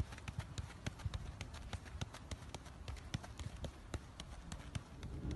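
A football being tapped quickly between a player's feet, with light footsteps on the grass pitch: short, irregular taps, several a second.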